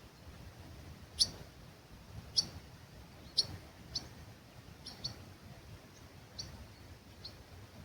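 Wild bird giving short, sharp, high chirps, about one a second and once as a quick pair, over a faint low rumble.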